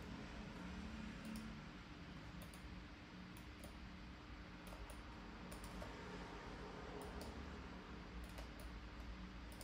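Faint mouse-button clicks at an irregular pace over a steady low hum.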